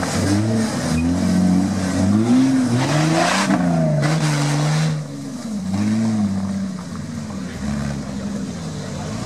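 Jeep Wrangler engine revving up and down again and again under load off-road, its pitch rising and falling every second or so, with a short rushing noise about three seconds in.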